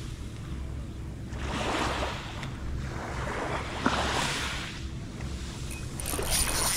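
Small waves washing onto a pebble shore, a wash every two seconds or so, with wind rumbling on the microphone. Near the end a spinning reel starts to click as it is cranked.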